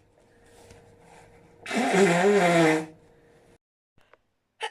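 A woman blowing her nose hard: one loud blast of about a second, with her voice sounding through it, about two seconds in.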